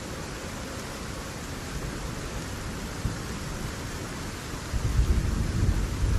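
A steady hiss like falling rain, then a deep rumble like thunder swelling in and getting louder about five seconds in.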